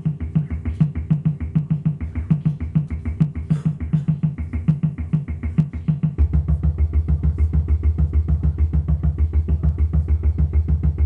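Live electronic music from a synthesizer and electronics: a fast, even pulsing beat, with a heavier low bass pulse joining about six seconds in.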